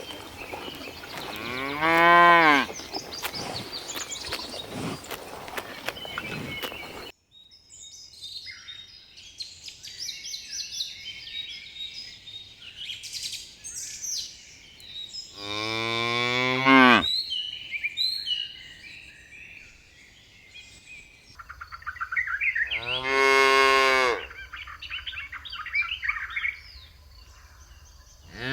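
Cows mooing: three long moos well apart, each about a second or more, with another beginning right at the end. Birds chirp in the background between the moos.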